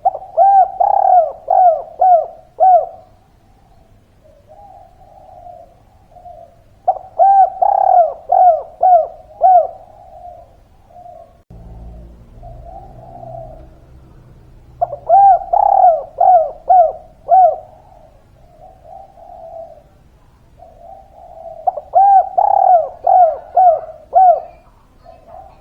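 Spotted dove (tekukur) cooing in four loud bouts of about five quick coos each, repeating roughly every seven seconds, with softer coos between the bouts.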